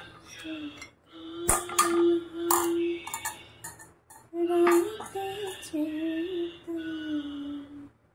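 A woman's voice singing a slow tune without words, holding long notes with short breaks. Several sharp clinks of kitchen utensils sound about one and a half seconds in and again near five seconds.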